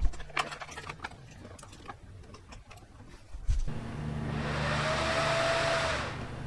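Graphics card cooling fan on an ASUS GTX 750 Ti spinning up and then winding back down with no workload, a rushing whir that swells a little over halfway in and fades near the end. The ramping is the card's fault, which the owner blames on a dead fan controller. Before it, a few light clicks over a low hum.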